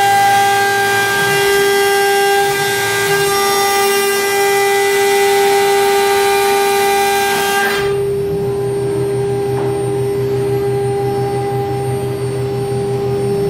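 JIKE 1325A CNC router's spindle running with a steady high whine. The noise that goes with it falls away sharply about eight seconds in, and a lower pulsing buzz takes over while the whine carries on.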